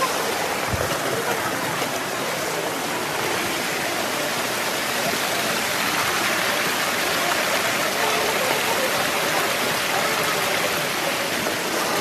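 Waterfall: water pouring down and splashing onto rock, a steady rushing noise.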